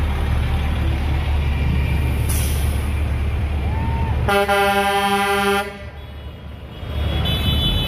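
Tow truck horn sounding one steady blast of just over a second, about halfway through, over a steady low rumble of passing vehicles.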